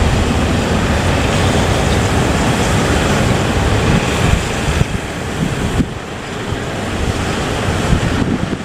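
Rough sea and strong wind around a boat at sea: waves rushing and crashing, wind buffeting the microphone, over a heavy low rumble. The noise eases briefly about six seconds in, then builds again.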